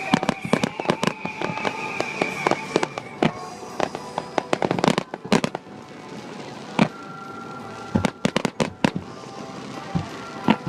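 Aerial fireworks bursting in a finale barrage: rapid bangs and crackles close together, thinning to a short lull about halfway through before more bursts follow.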